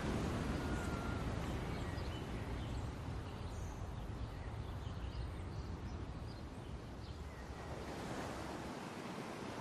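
Steady outdoor seaside ambience: an even wash of wind and distant surf with a low rumble, and a few faint short high chirps.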